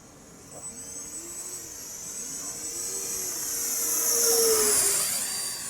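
Electric ducted fan of an 80 mm RC F-4 Phantom jet model whining as the plane flies past. It grows louder to a peak about four and a half seconds in, and the pitch drops as it goes by.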